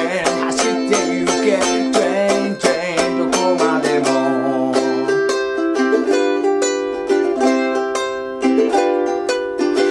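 G-Labo Black Beauty ukulele strummed with short, chopped cutting strokes through C, F, Am and Dm chords. About six seconds in it moves into an interlude of picked arpeggio notes on C and G7 that ring out longer.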